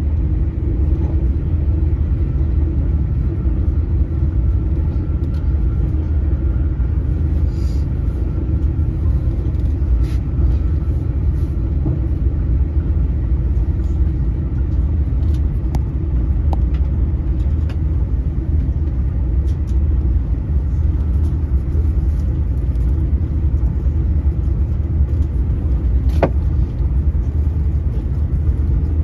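Öresundståg electric train running at speed, heard from inside the carriage: a steady low rumble of wheels on rail, with a few faint clicks and one sharper click near the end.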